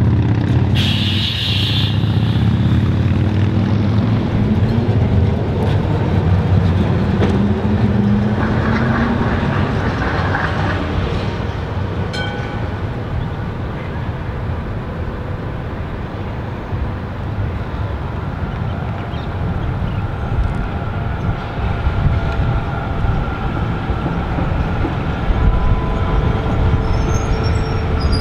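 Street-running trams and road traffic rumbling by. A W-class tram is passing as it opens, and near the end an articulated B2-class tram draws level with a steady motor whine, its wheels just starting to squeal on the rail.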